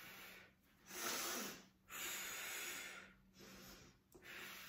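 A woman breathing hard in and out, a series of about five breaths roughly a second apart, while holding her belly pulled up in a core-strength breathing exercise.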